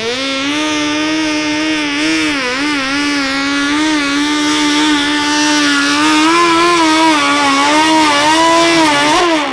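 Modified 1500cc-class garden tractor engine at full throttle through a straight exhaust stack, pulling a weight-transfer sled. The engine holds high revs under load with a slightly wavering pitch.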